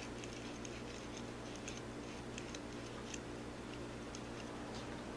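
Faint, scattered light clicks and taps of hands handling the small parts and wiring of a micro RC crawler chassis, over a steady low hum.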